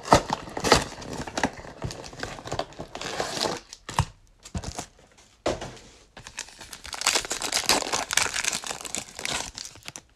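Cellophane shrink wrap crinkling and tearing off a trading-card box, then foil card packs crinkling as they are handled and torn open. The crackling is dense and irregular, with a quieter spell about four seconds in.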